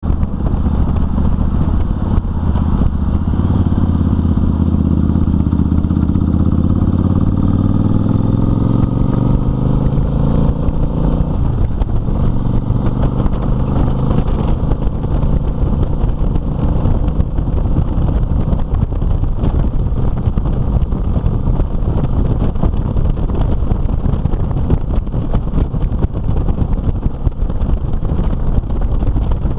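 Motorcycle engine accelerating, its pitch climbing steadily over the first ten seconds or so. Wind rush on the microphone then takes over as the bike cruises at road speed.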